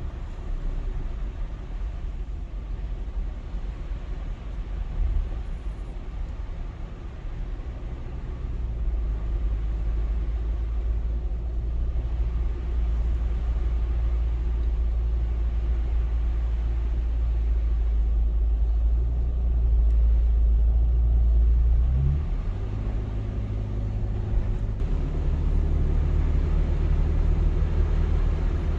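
Car driving, heard from inside the cabin: a steady low engine and road rumble. About 22 seconds in the engine note briefly rises and then settles into a different steady hum.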